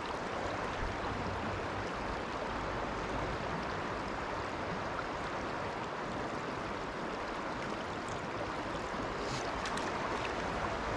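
Steady rush of the Little Juniata River's current, a wide trout stream running fast and choppy.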